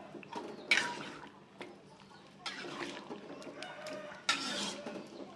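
Metal spatula stirring chicken pieces in thick coconut milk in a wok. There are three stirring strokes about two seconds apart, with small clicks between them.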